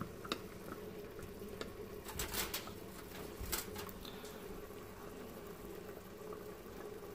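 Sauce simmering in an Instant Pot on sauté mode, a faint steady bubbling patter. A few light clinks of a metal fork against a small glass dish come in the first few seconds.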